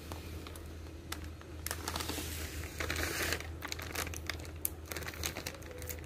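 Plastic bag crinkling and rustling as dry grains are poured from it into a glass pot, with scattered small clicks; the densest rustling comes around the middle and then stops.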